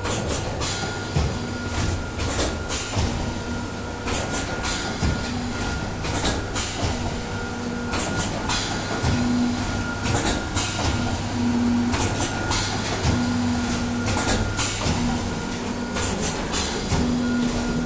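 Suba automatic blanking machine running on die-cut carton sheets: a steady motor hum with a sharp clack every second or two as the blanking head strokes, and a tone that switches on and off at intervals.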